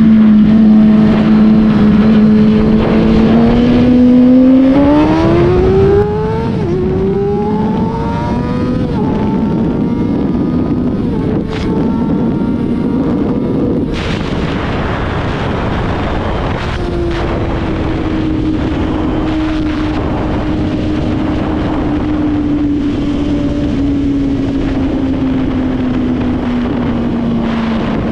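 Kawasaki ZX-6R 636 inline-four sportbike engine, heard from the rider's seat, accelerating hard through the gears: the note rises and drops several times with quick upshifts. It then settles into a steady high-speed run with a rush of wind, the engine note slowly falling as it eases off.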